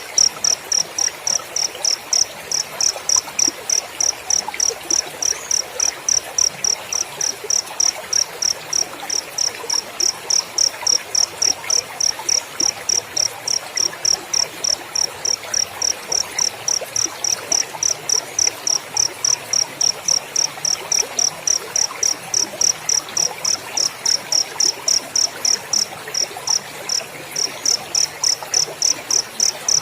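Cricket chirping in a steady, even rhythm of about three high chirps a second, with a brief break near the end.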